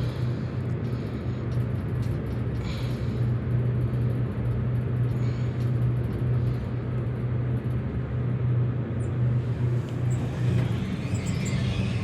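Steady low hum and rumble inside an Otis traction elevator car, modernized by Thyssenkrupp, as it travels up between parking levels.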